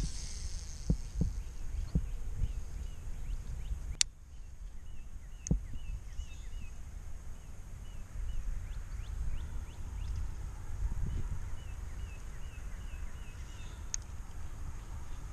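Wind rumbling on the microphone, with a small bird calling in two runs of short, quick repeated chirps. Three sharp clicks stand out, the first about four seconds in and the last near the end.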